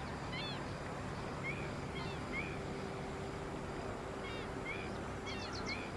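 Birds giving short chirps, one or two every second, over a steady low hum and a background hiss; a quick run of four ticks comes near the end.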